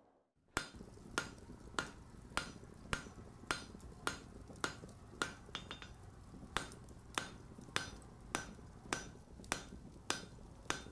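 Blacksmith's hammer striking steel on an anvil in a steady rhythm, a little under two blows a second, starting about half a second in, each blow ringing briefly, with a low hum underneath.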